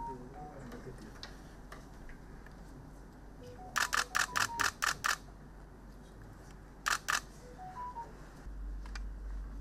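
Still-camera shutters clicking: a rapid run of about seven shots, then two more a couple of seconds later, with faint short beeps before each run.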